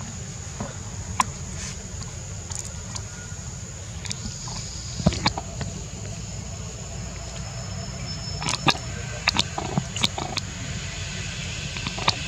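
Outdoor ambience: a steady low rumble under scattered sharp clicks and snaps, loudest about five seconds in and again between eight and ten seconds.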